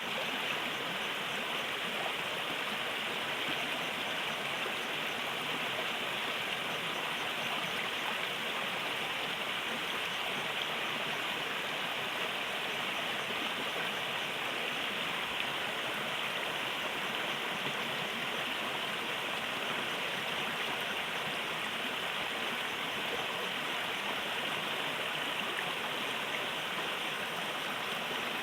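A small river flowing steadily, its water rushing and gurgling in an even, unbroken hiss.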